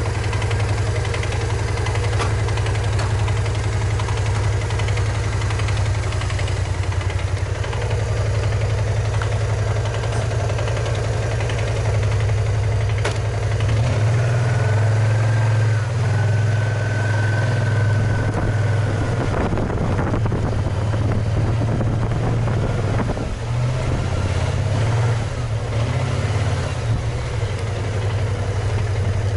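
BMW maxi-scooter engine idling with a steady low hum, then pulling away and riding slowly about halfway through, its note shifting with the throttle. A thin high whine shows for a few seconds as it moves off.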